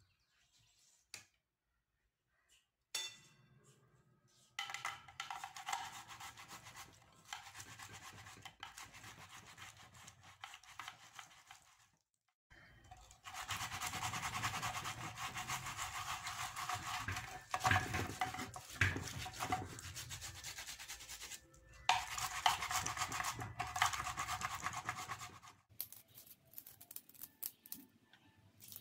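Tomato halves rubbed against a stainless-steel box grater: fast, wet rasping strokes in three long stretches broken by short pauses.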